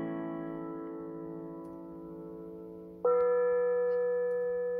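Music track played through a car's audio system: a held chord rings and slowly fades, and a new note is struck about three seconds in and rings on, used as a test signal to check the centre image after time alignment.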